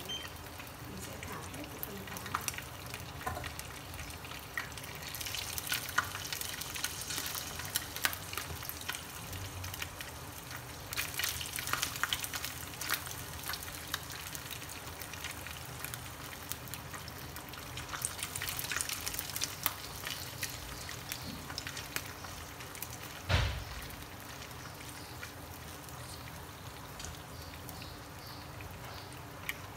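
Small goby fish sizzling and crackling in hot oil in a nonstick frying pan, the crackle swelling in waves as more fish are laid in. One louder knock about two-thirds of the way through.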